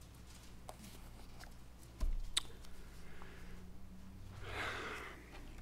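Papers being handled at a pulpit microphone: a dull low thump about two seconds in, a few light clicks, and a short rustle near the end, over a faint steady hum.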